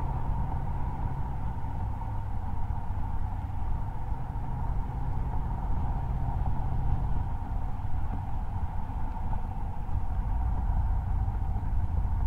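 The exhaust of a 2016 Range Rover Sport Supercharged's 5.0-litre supercharged V8, heard from a microphone mounted outside near the tailpipe at a steady highway cruise. It gives a low, even drone over road and wind noise, and its pitch drops slightly about seven seconds in.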